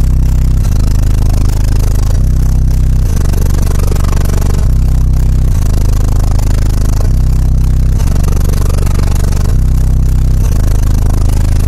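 Pioneer subwoofer playing a loud, deep bass line, its low notes held and changing about every two and a half seconds, with a clattering rattle over it.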